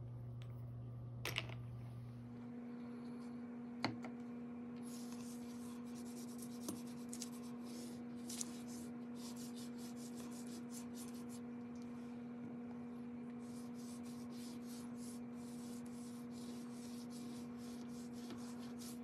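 Water-dipped chalk pastels scratching across paper in many quick strokes, two sticks drawing at once. A steady low hum runs underneath, and there are a couple of sharp taps in the first four seconds.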